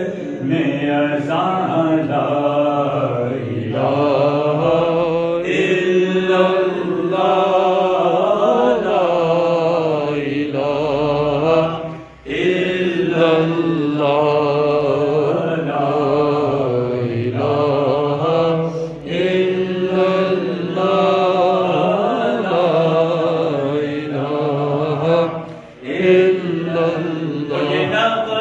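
A man's solo melodic Islamic devotional chanting into a microphone, in long drawn-out wavering phrases with brief pauses about twelve seconds in and again near the end.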